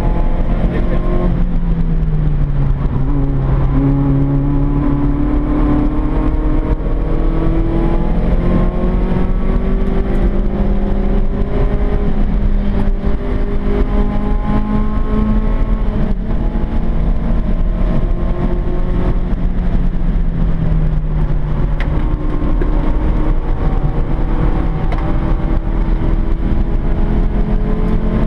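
Peugeot 106's four-cylinder engine heard from inside the cabin, revving up and dropping back several times as it is driven hard on track, over steady road noise.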